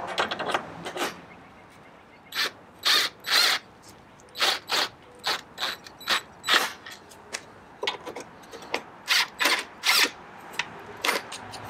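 Cordless drill/driver run in about twenty short bursts, driving the hex bolts of a motorcycle top-case mounting plate into the rear rack to get them started.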